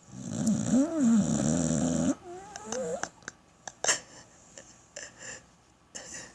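Pit bull snoring in its sleep: a long snore with a pitch that wavers up and down, then a shorter pitched one, followed by a few short clicks.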